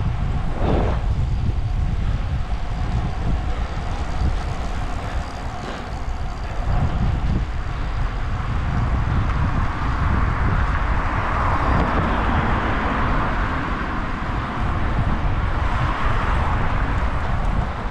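Wind rushing over the microphone of a camera carried on a moving road bike, with steady road noise that swells for a few seconds in the middle.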